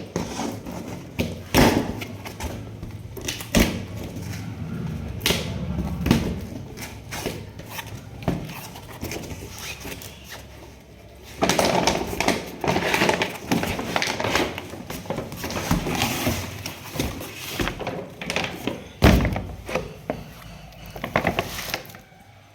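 Packaging being handled and opened by hand: a string of knocks and thuds with rustling in between, busiest about halfway through.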